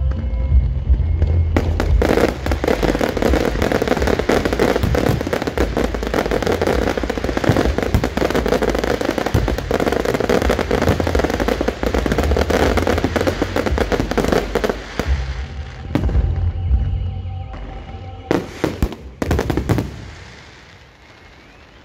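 Aerial fireworks going off in a finale: a dense rapid barrage of bangs and crackle, many reports a second, for about thirteen seconds, then a few last loud bangs, dying away near the end.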